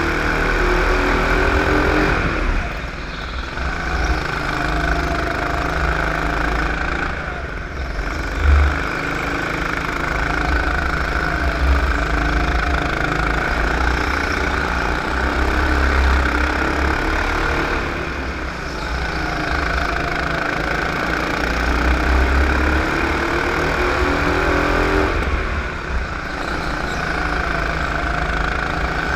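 Go-kart engine heard from on board, its pitch climbing on the straights and dropping each time the driver lifts for a corner, several times over. A short, loud low thump comes about eight seconds in.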